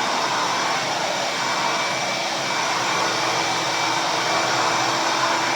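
Ridgid 12-gallon, 5.0 HP wet/dry shop vac running steadily: a constant rush of air through the hose with a thin, steady high whine from the motor.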